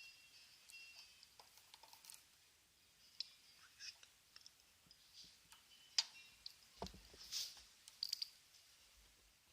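Faint scattered clicks and light taps, with a dull thump about seven seconds in.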